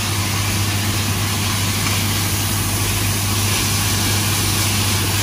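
Beef slices frying in a pan on an infrared cooktop: an even hiss over a steady low hum from the running kitchen appliances.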